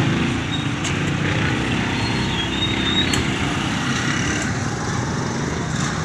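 A motorcycle engine running steadily at low speed, over the general din of a busy street.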